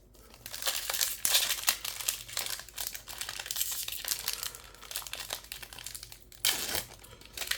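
Crinkling of a Magic: The Gathering booster pack's foil-plastic wrapper being handled and torn open, a dense crackle with a louder burst near the end.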